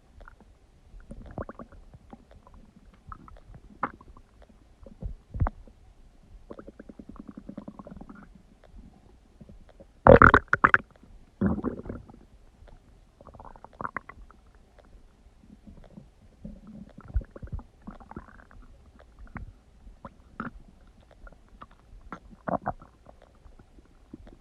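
Human stomach gurgling and growling as it digests: irregular bubbling rumbles and short squeaks, with the loudest gurgle about ten seconds in.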